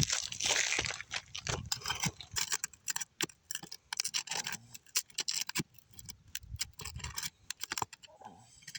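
Hand work on asphalt roof shingles: a flurry of irregular clicks, taps and scrapes as the damaged tab is worked loose, with a scratchy rasp in the first couple of seconds.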